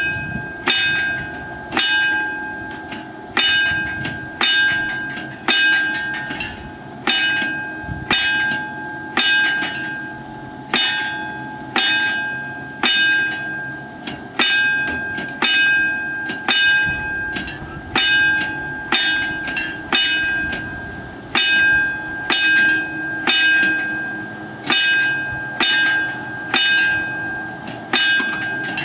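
Level-crossing warning bell striking steadily, one ringing stroke about every three-quarters of a second, each dying away before the next. It is the warning that a train is approaching and the barriers are about to close.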